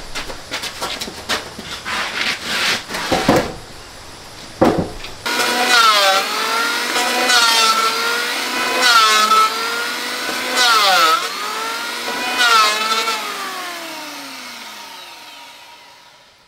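Electric hand planer shaving a wooden beam, its motor pitch dropping under load and recovering with each pass, about every one and a half seconds, then fading away near the end. Before it, for the first few seconds, scattered knocks and scraping of timber being handled.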